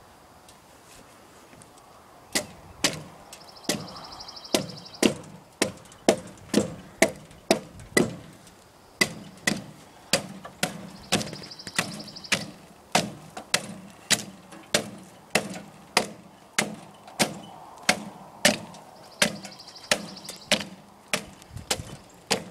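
Hatchet chopping bark off an oak log: a steady run of sharp wooden strikes, about two a second, beginning about two seconds in.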